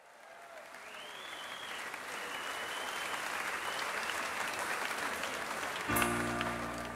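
Stadium crowd applauding, fading in, with a couple of whistles about a second in. Near the end, music with sustained chords starts suddenly over the crowd.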